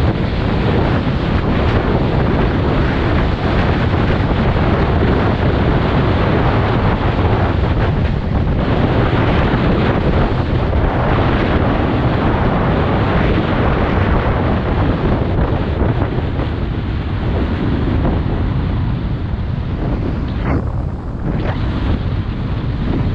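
Loud, steady wind rushing and buffeting over the camera microphone. It thins out briefly near the end.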